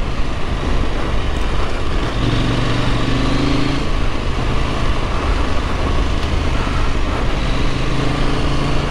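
Husqvarna Norden 901's parallel-twin engine running steadily at riding speed, heard from the rider's seat under a constant rush of wind and tyre noise on a gravel track.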